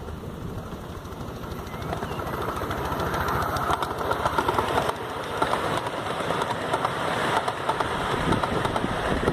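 7¼-inch gauge miniature train, a model Britannia-class locomotive pulling carriages, running past on its track: a rumble with clicking wheels on the rails, growing louder as it comes close and passes.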